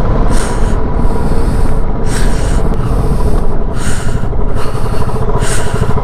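Wind buffeting the microphone of a moving motorcycle, with the Royal Enfield Standard 350's engine running beneath it. Swells of hiss come about every second and a half.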